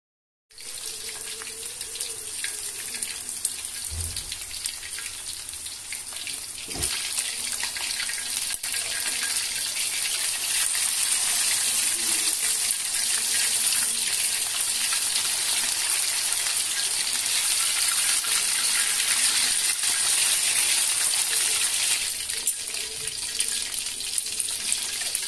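Chicken pieces deep-frying in hot oil in a wok: a steady crackling sizzle that starts suddenly about half a second in and grows louder after about seven seconds. Two dull knocks, around four and seven seconds in.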